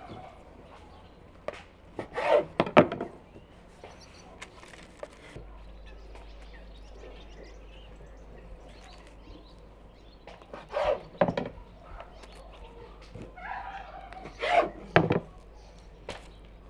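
Short knocks and clatter of kitchen utensils against a wooden board and bowls, in three brief clusters over a faint steady background.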